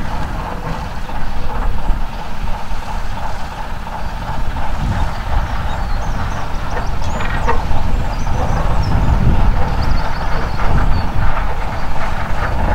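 Vulcan Foundry 0-4-0 diesel shunter running as it slowly moves a pair of 1959 London Underground tube cars along the track, a steady engine note over a low rumble, with a few brief high squeaks.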